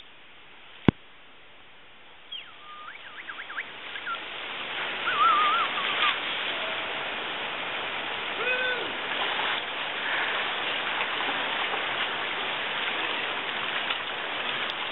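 River water rushing and lapping close to the microphone, building up a few seconds in and then holding steady. A few short, wavering calls sound over it. A sharp click comes about a second in.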